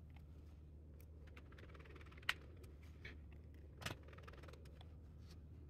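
Faint, sparse clicks and taps of a small screwdriver and fingers on a laptop's plastic bottom cover while its screws are refitted, the sharpest click a little over two seconds in and another near four seconds, over a low steady hum.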